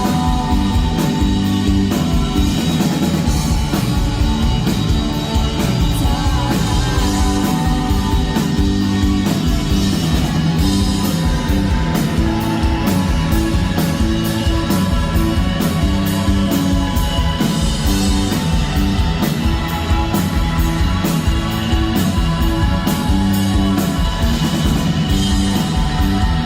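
Rock music from a full band: guitars and a drum kit with a steady beat, with singing.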